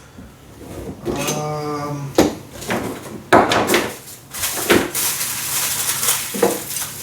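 Rustling and clattering of welder accessories and packaging being handled, with several sharp knocks.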